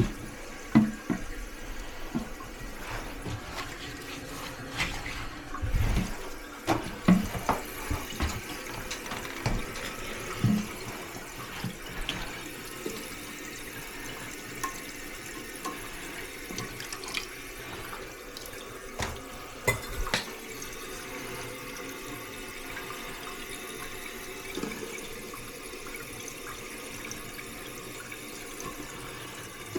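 Water running steadily into a toilet tank as it refills, with scattered clicks and knocks in roughly the first twenty seconds, then only the water.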